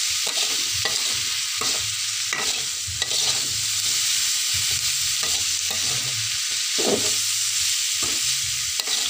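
Oyster mushrooms and tempeh stir-frying in a wok: a steady sizzle, with a metal spatula scraping and turning the food at irregular strokes.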